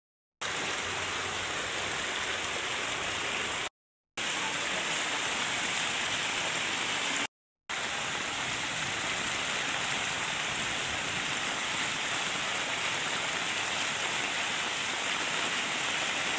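Heavy rain falling and floodwater rushing through a street, a steady hiss with no pitch to it. It cuts out for a split second twice, about four and seven and a half seconds in.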